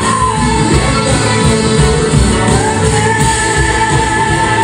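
A live rock band playing, with drums, electric guitars and a horn section. A long high note is held from about halfway through.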